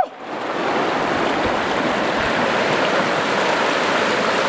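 River water rushing over rapids: a steady, even rush that drops out for a moment at the very start and quickly returns.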